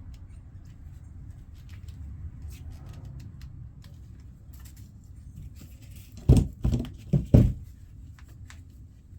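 Scattered small clicks and rustling of wire being worked with hand wire strippers, then four loud knocks in quick succession a little past the middle.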